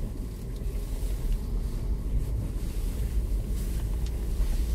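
Low, uneven rumble inside a Renault Kaptur crawling over a muddy, rutted dirt road in two-wheel drive: the engine, tyres and suspension working over the ruts and puddles.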